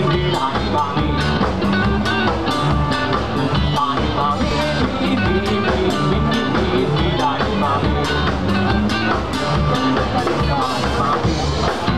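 Live rock band playing: electric guitars and a drum kit, with a voice on the microphone over them.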